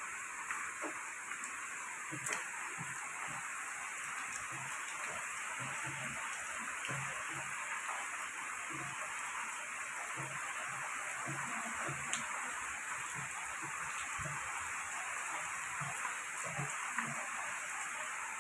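Heavy rain falling steadily, a constant even hiss of downpour, with a couple of sharp ticks of drops striking something close by.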